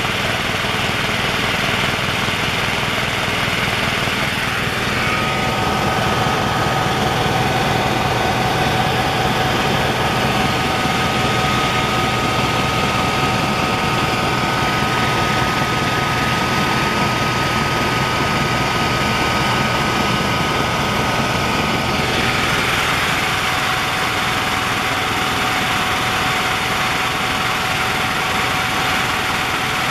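Helicopter cabin noise in flight: the turbine engines and rotors make a steady, loud drone. A higher whine joins about five seconds in and fades out about two-thirds of the way through.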